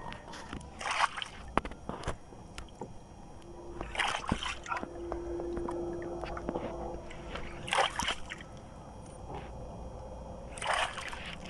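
Water sloshing and splashing against a small boat's hull in surges about every three seconds, over a low steady rumble. A faint steady hum sounds for a few seconds in the middle.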